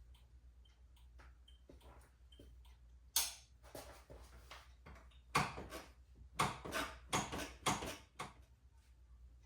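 Motorcycle turn-signal flasher ticking faintly and evenly, a little under once a second, while the indicators are tested. From about three seconds in, a series of sharp clicks and knocks sounds over it.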